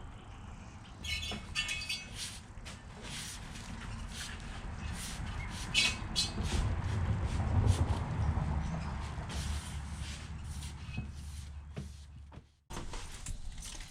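Short, high squeaks and scrapes of rubber as a soaped truck tire is worked by hand onto a steel wheel rim, over a low rumble that swells in the middle.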